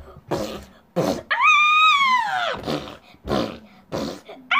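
A very high, squeaky character voice screaming in two long wails that each rise and then fall, with short sharp noises before and between them: the cries of a child character being punished with a belt.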